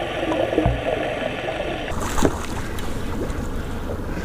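Muffled water rush with a steady hum, heard through an underwater camera. About halfway through it cuts to a brighter rush of wind and water from a small fishing boat.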